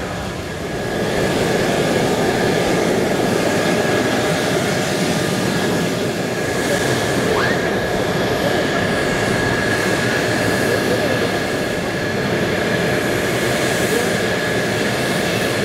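Fighter jet engines running on the flight line: a steady jet roar with a thin, constant high whine, growing louder about a second in.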